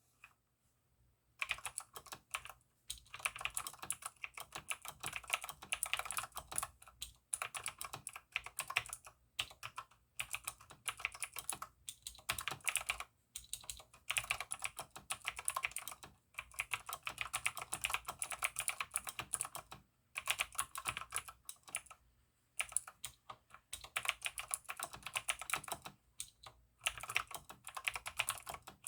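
Typing on a mechanical keyboard with Outemo Blue clicky switches lubed with Krytox 205g: fast runs of sharp key clicks broken by short pauses, starting about a second and a half in.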